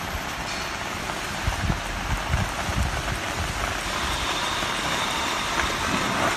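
Free-spinning steel rollers of an unpowered, expandable gravity roller conveyor rattling as a 25 kg sack rolls over them. It is a steady, rain-like clatter that grows a little louder after about four seconds.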